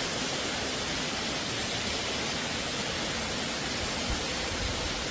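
Steady rushing of wind on a mountain trail, with a few low rumbles of wind buffeting the microphone about four seconds in.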